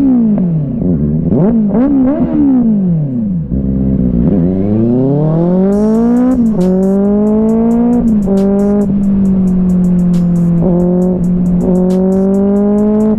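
Motorcycle engine with a loud aftermarket exhaust being revved in quick rising-and-falling blips, then accelerating in one long rising pull. The pitch drops at each upshift, and the engine then holds a steady high-revving note.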